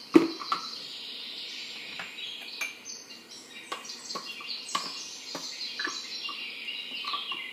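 The lid of a plastic Blendtec blender jar comes off with a sharp knock. A spoon then scrapes and taps inside the jar, stirring the coarsely ground oats-and-nut mix, with birds calling in the background.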